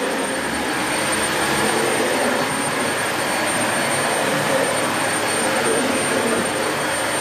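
Dyson Light Ball Multi Floor bagless upright vacuum cleaner running steadily: an even rush of air with a thin high whine from the motor over it.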